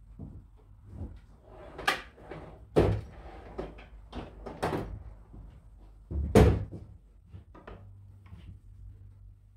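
Hand tools clanking and knocking against the transmission thermostat block in a bench vise while the bypass eliminator plug is tightened: a handful of separate sharp knocks, the loudest about six seconds in.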